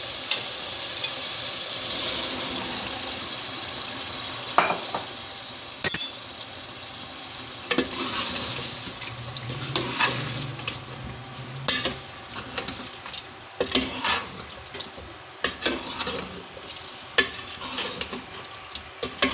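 Boiled chickpeas being stirred into chicken masala frying in an aluminium pot. A steel ladle scrapes and clicks against the pot over a steady sizzle, and the sizzle is loudest in the first few seconds.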